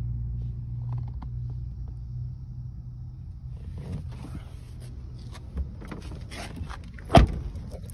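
A steady low rumble, then rustling and handling knocks from about halfway through, and one loud thump near the end.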